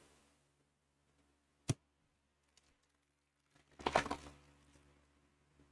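A single sharp click, then a brief crinkling rip of a foil trading-card pack wrapper being torn open about four seconds in.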